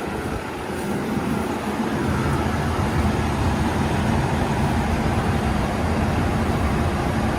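Combine harvester running, its engine and machinery growing louder over the first two to three seconds, then holding a steady hum.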